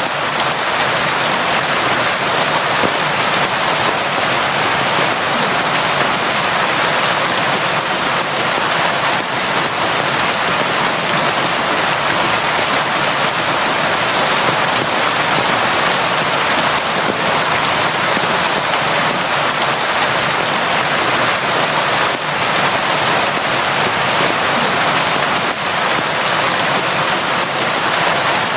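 Steady, constant rain, heavy and even, pattering on surfaces with no let-up.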